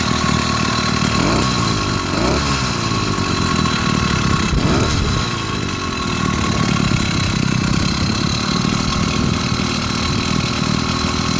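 80cc two-stroke motorized-bicycle kit engine, fitted with a new performance carburetor, running at idle. It revs up and back down briefly three times in the first five seconds, then settles to a steady idle.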